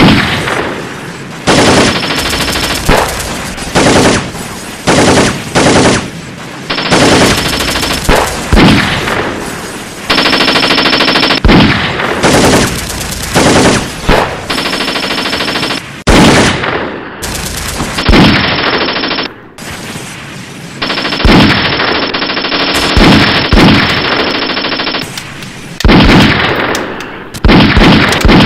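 Rapid automatic gunfire, fired again and again in bursts of one to two seconds with short gaps and a few single sharp shots between.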